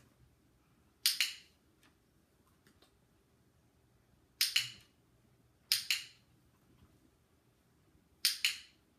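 A dog-training clicker clicked four times at uneven intervals, each click a sharp double snap. The clicks mark the dog's correct behaviour on his mat, each one paid with a treat.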